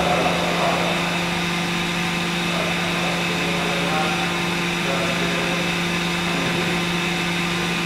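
Steady machinery hum from a structural testing rig, a low drone with an even noise beneath it; faint voices in the background.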